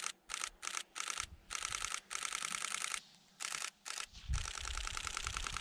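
Camera shutter firing in continuous burst mode, a rapid clatter of clicks in a series of bursts, some short and some lasting over a second, as the photographer follows a skier down the slope.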